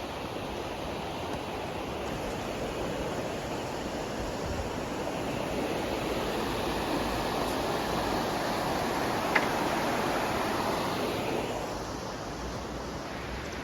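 Steady rushing of river water that grows a little louder toward the middle and then eases off again, with one brief click about nine seconds in.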